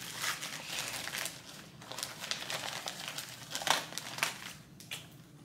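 A clear plastic zip-top bag and the papers inside it crinkling and rustling as hands pull items out of it. The rustling is irregular, with a couple of louder crackles a little after three and a half seconds in.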